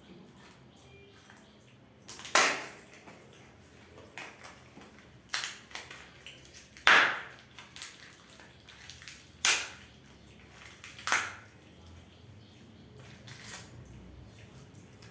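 Kinder Joy eggs being opened by hand: a series of sharp crackles and crinkles of wrapper and plastic shell, about six loud ones a second or two apart, with softer rustling in between.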